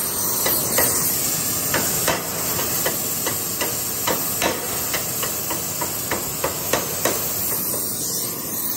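Gas torch hissing steadily as it heats a new flywheel ring gear so that it expands enough to drop onto the flywheel. Irregular sharp clicks sound through the hiss, about fifteen of them.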